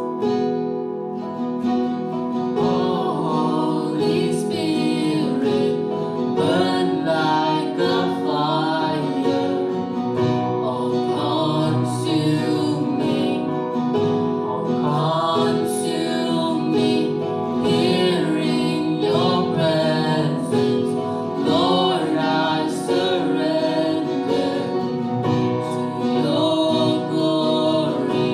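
Live contemporary worship song: a man and a woman singing together, accompanied by acoustic guitar and keyboard.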